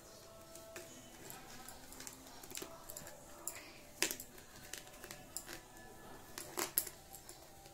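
Light clicks and rustles of a plastic bowl and nylon cord being handled as the cord is threaded through the bowl's holes and pulled tight, with a sharper click about four seconds in and a few more near the end.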